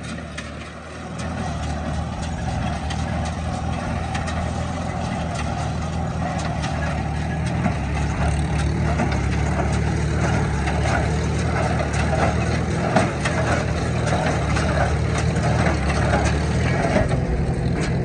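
A Farmall H's four-cylinder engine runs steadily while the New Holland Hayliner 69 square baler behind it works, its plunger pulsing with knocks about once a second. The baler is chewing through a big clump of hay picked up from the windrow.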